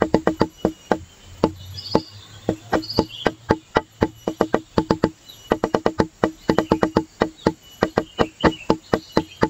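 Background music: a fast, even run of pitched wood-block-like knocks, about eight a second, with short breaks about a second in and again near the middle.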